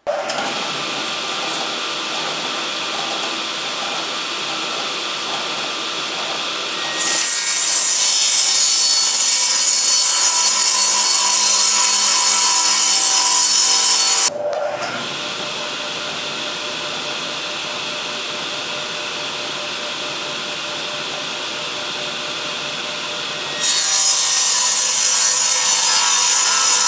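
Table saw running, getting louder and harsher each time its blade cuts through 3/4 inch plywood: once for about seven seconds starting some seven seconds in, and again near the end.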